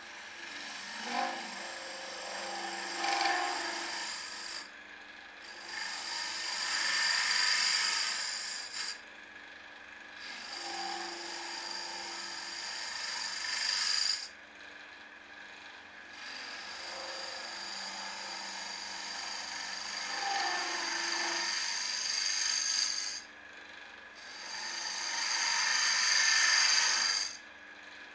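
Wood lathe spinning a small box blank while a turning tool hollows out its inside: a hissing, scraping cut that comes in five bouts of a few seconds each, with short pauses between where only the lathe's hum remains.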